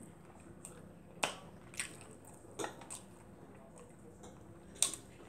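Close-up mouth sounds of someone chewing barbecued ribs: about six sharp, wet smacks and clicks at irregular intervals, the loudest one near the end.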